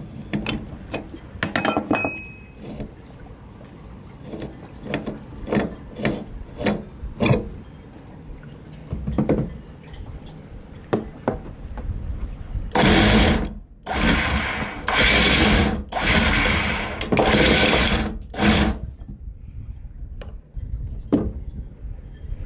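Metal clinks and knocks of a wrench and loose parts as an anchor windlass's top cap and drum are taken off. About halfway through there is a run of five or six loud noisy bursts, each about a second long.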